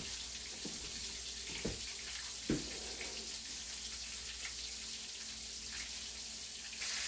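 Cornmeal-coated catfish nuggets pan-frying in hot oil in a skillet: a steady sizzling hiss with a few sharp pops in the first three seconds, a little louder near the end.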